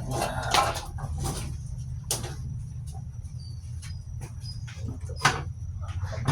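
Scattered clicks and light knocks of air-conditioner parts and tools being handled during reassembly, over a steady low hum.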